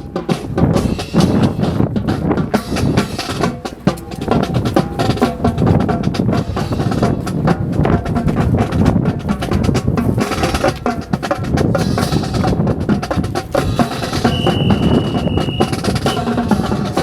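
Rhythmic drumming with many sharp wooden clacks, dense and steady throughout. A steady high tone sounds for about a second and a half near the end.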